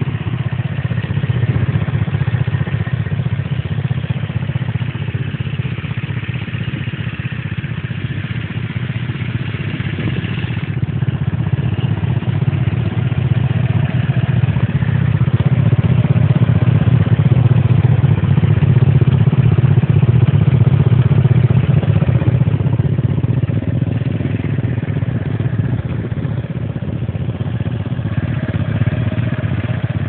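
Small scooter engine running steadily, its sound swelling and easing gently over the stretch.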